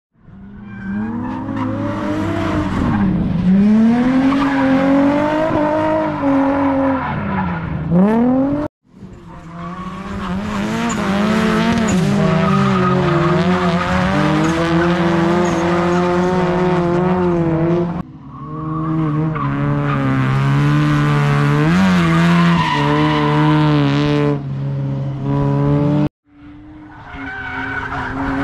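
Drift cars sliding under power: engines revving up and down over a steady hiss of tyre squeal. The sound drops out abruptly three times between short clips.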